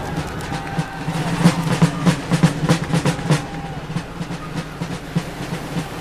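Drums beating with a clatter of sharp knocks, several a second, over a steady low rumble.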